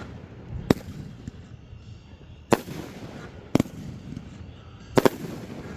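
Fireworks shells bursting overhead in sharp bangs, each trailed by a rumbling echo. There are four reports spaced a second or more apart, and near the end two bursts come almost together.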